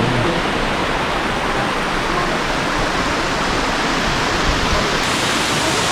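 Waterfall rushing steadily, water pouring over rock ledges and splashing onto stones below.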